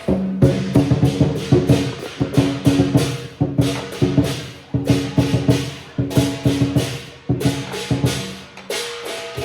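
Instrumental music: a melody of held notes over rapid, sharp wood-block-like percussion strikes.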